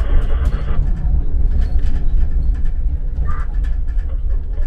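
Tram running along the track, heard from the driver's cab: a steady low rumble with scattered clicks and knocks from the wheels and car body. A hiss cuts off about a second in.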